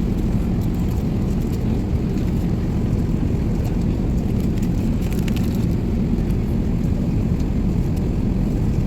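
Steady low rumble of an Airbus A380's cabin in cruise flight: engine and airflow noise, with a few faint clicks about five seconds in.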